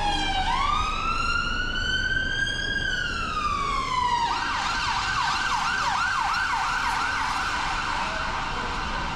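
Emergency vehicle siren: a slow wail that falls, rises and falls again, then about four seconds in switches to a fast yelp of quick repeating sweeps, over steady low street noise.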